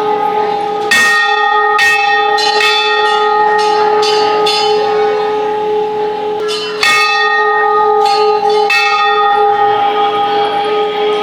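Hindu temple bells struck again and again, the strikes coming irregularly and overlapping so the metal ringing never dies away, two main pitches held throughout.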